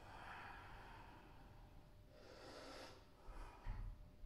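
A woman breathing faintly: one long breath at the start and another about two seconds in, then soft low bumps near the end.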